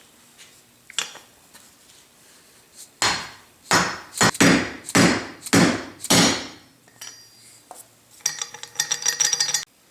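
Hammer blows on a seal-pressing assist tool, driving an inner seal into a planer table roller: about seven sharp taps over three seconds, each with a short ring. Near the end comes a brief metallic ringing clatter.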